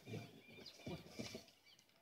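Faint, irregular scuffling of a roped young steer bucking and kicking on dry, dung-strewn ground, its reaction to a painful injection under the skin. Faint bird chirps are heard too.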